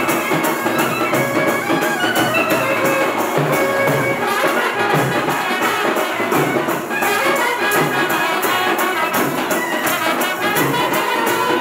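Instrumental background music with held melodic notes over a steady percussion beat.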